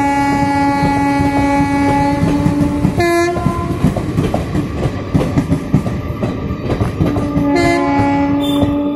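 Broad-gauge passenger coaches passing close by with a steady clickety-clack of wheels over rail joints, while the train's locomotive horn sounds: a long blast held for the first three seconds, a short higher blast just after, and another long blast near the end.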